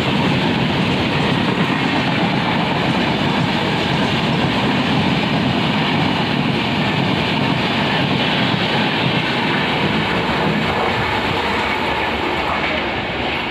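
Express train's passenger coaches passing at speed close by: a steady, loud running noise of wheels on rail with a clickety-clack rhythm.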